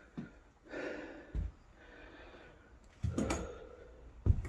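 A man's breathing and sniffing close to the microphone, with a few short knocks and thumps from moving about and handling things.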